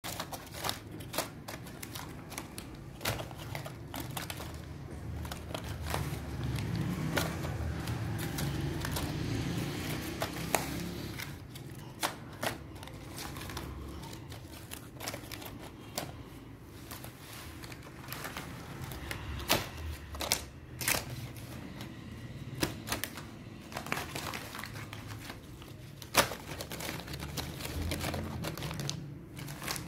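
Stiff plastic vacuum packs of miswak sticks being handled in a cardboard box: irregular sharp clicks and taps with plastic crinkling as the packs knock together and are pressed into place.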